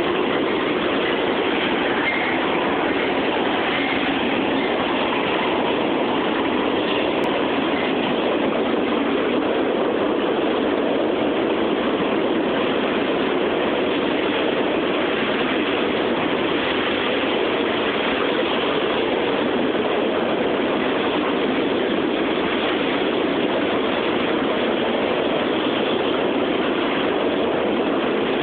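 CSX mixed freight train's cars rolling past: a steady noise of steel wheels on the rails that holds at an even level.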